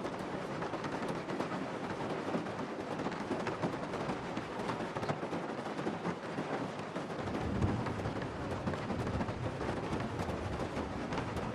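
Heavy rain drumming on a car's roof and windshield, heard from inside the cabin as a dense hiss full of small drop impacts. A low rumble swells briefly about seven seconds in.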